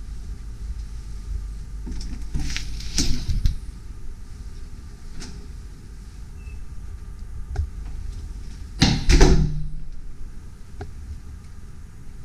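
Low rumbling noise on the microphone with a few knocks and bumps: a cluster about two to three and a half seconds in, and a louder knock about nine seconds in with a short low ring after it.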